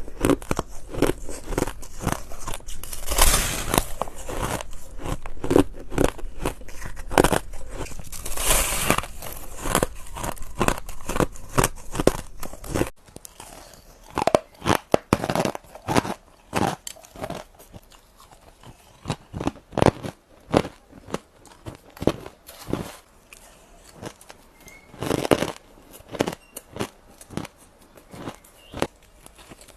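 Ice being bitten and chewed close to the microphone, a rapid run of crunches. About halfway through, the crunching thins out into separate, spaced crunches with short quiet gaps between them.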